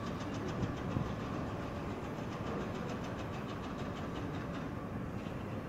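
A train running on the station tracks, its wheels clicking over the rail joints about five times a second above a steady low rumble. The clicking fades out near the end.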